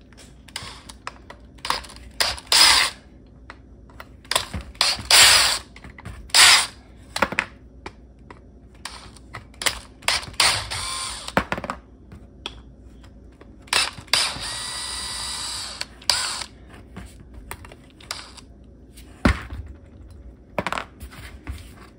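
Cordless DeWalt Atomic driver running out the faceplate screws of a Bendix MV-3 dash brake valve in short runs of about a second, with small clicks of handling between. The longest run, about two seconds and steady, comes about two-thirds of the way through.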